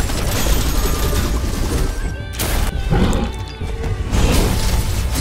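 Cinematic trailer music with a heavy bass bed, mixed with crash and impact sound effects; the loudest hit lands about two and a half seconds in.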